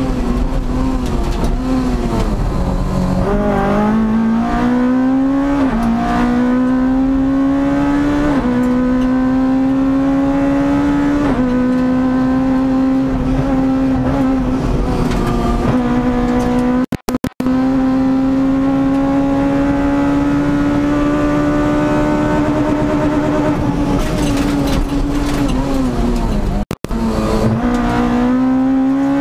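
Rally car engine heard from inside the cockpit under hard acceleration on a special stage. Its pitch climbs and drops back with three quick upshifts, is then held high for a long stretch, eases off, and picks up again near the end. The recording cuts out for a split second a few times around the middle.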